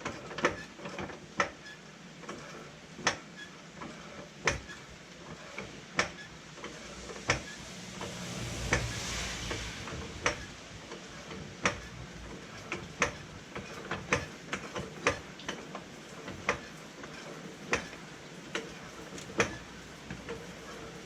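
Hydraulic floor jack being pumped by its handle to raise a car, a sharp click at each stroke about once a second, with a longer rushing scrape about nine seconds in.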